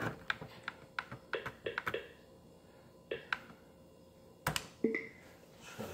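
Typing and clicking on a computer keyboard: a quick run of sharp key clicks, a few more after a pause, then one louder knock about four and a half seconds in.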